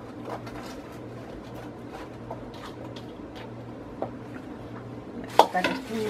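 Chopped onion pieces tipped from a bowl onto a baking tray: a run of soft light taps and rattles, with one sharper knock about five seconds in.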